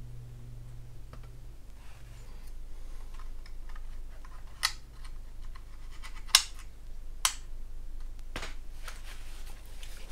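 Handling noise from a large plastic scale model being turned over and moved about on a cutting mat. Light rubbing is broken by four sharp clicks and taps in the second half, the loudest a little past the middle.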